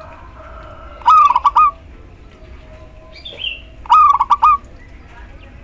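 Female zebra dove calling twice, each call a quick run of several clipped cooing notes lasting about half a second, the two about three seconds apart.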